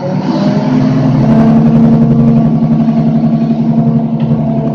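Front-load garbage truck's engine revving up, rising in pitch around the start, then holding steady at high revs with a loud drone that eases slightly near the end.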